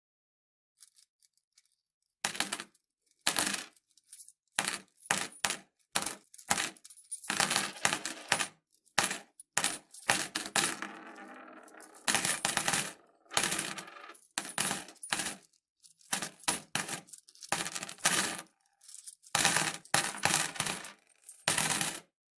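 Metal coins clinking and jingling in a long series of short, separate drops and handfuls, starting about two seconds in. A longer ringing jingle comes near the middle.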